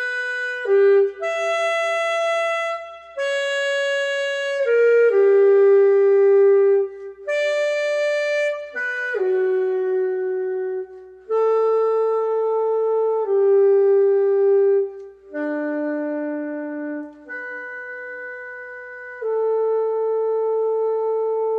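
Music: a single reedy wind-instrument voice playing a slow melody of separate held notes, one at a time, each lasting one to two seconds with short breaks between them.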